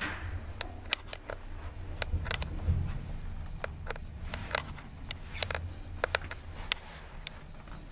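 Hitachi G-Select rope-driven elevator car travelling down one floor: a steady low hum from the moving car, with scattered light clicks and ticks over it.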